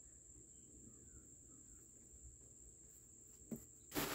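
A steady, high-pitched insect trill, as from crickets, with a brief rustle near the end.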